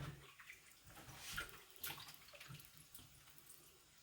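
Faint water sloshing and dripping as lasagna sheets are handled in a bowl of cold water, after a soft knock at the start.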